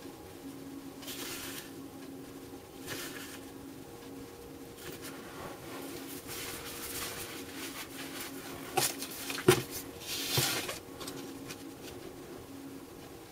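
Hands handling electrolytic capacitors and a caulk tube on a cardboard-covered bench: soft rustles and scrapes, then a few sharp knocks and a scrape about two-thirds of the way in, over a steady low hum.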